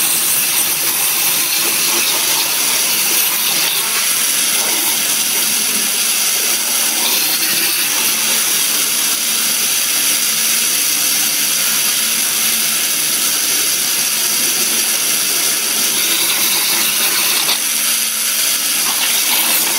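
Abrasive water jet cutter's high-pressure jet giving a steady high hiss as it cuts through 20 mm Corten steel plate.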